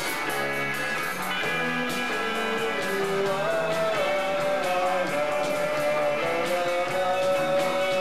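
Rock band playing live: electric guitars over drums and cymbals, with a melody of long held notes stepping up and down in pitch.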